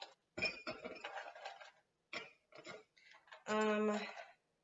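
Ice cubes clinking and rattling as they are dropped by hand into glasses: scattered clicks and short rattles. About three and a half seconds in comes a brief held note, like a hum, lasting about half a second.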